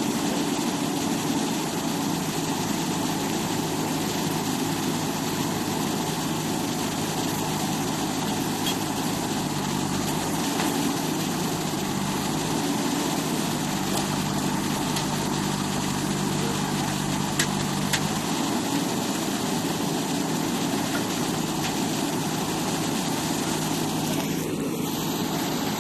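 Diesel engine of a JCB backhoe loader running steadily at idle, a constant engine drone with no change in speed.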